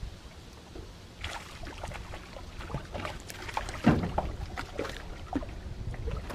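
Wind buffeting the microphone while a hooked bass is fought from a small boat: a run of irregular clicks, splashes and knocks begins about a second in, the loudest a knock about four seconds in.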